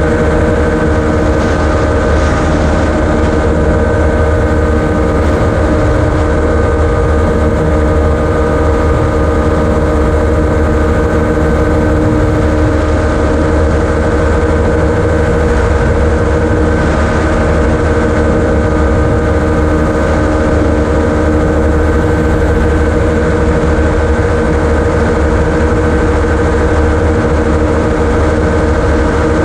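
Gyroplane engine and propeller running at a steady cruise power in flight, mixed with a rush of air noise, with no change in pitch or level.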